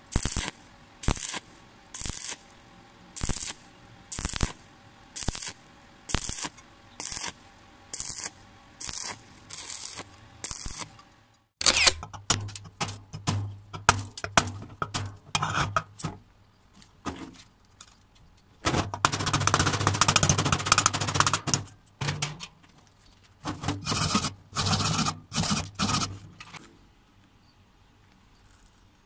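Stick-welding arc on thin steel plate run in a stitch pattern: the arc crackles in short, evenly spaced bursts, cut off between each. About halfway through it gives way to a spring-handled chipping hammer knocking slag off the bead in scattered sharp taps, with a stretch of rapid scraping and a low hum around two-thirds of the way in.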